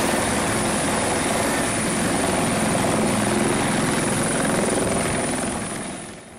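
Firefighting helicopter hovering low with its snorkel hose lowered: steady rotor and engine noise with a thin high whine above it, fading near the end.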